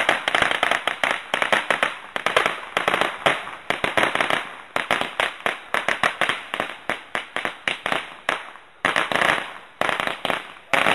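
A string of firecrackers going off: a rapid, continuous run of sharp cracks, with a couple of short breaks in the second half.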